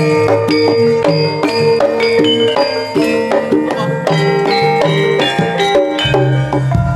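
Javanese gamelan ensemble playing karawitan campursari, an instrumental passage. Struck bronze-keyed metallophones ring out a quick, continuous run of notes over drum strokes, with heavier low strokes near the end.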